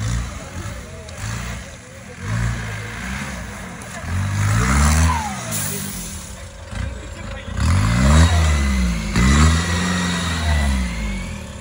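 Willys-style off-road jeep's engine revving in repeated bursts under load, its note rising and falling with each blip of the throttle as it climbs a steep dirt mound. The loudest burst comes about eight seconds in.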